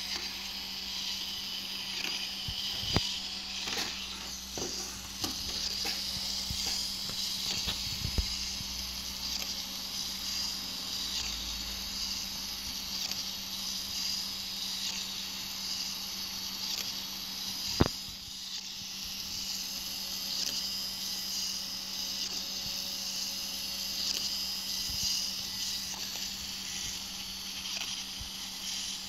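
Miniature DC gear motor whining as it drives a 3D-printed PLA slide gate through small plastic gears, with a few sharp clicks, the loudest about eighteen seconds in.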